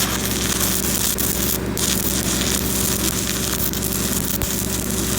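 Electric arc welding: the steady crackling hiss of a welding arc burning on the pipe, over a steady low hum.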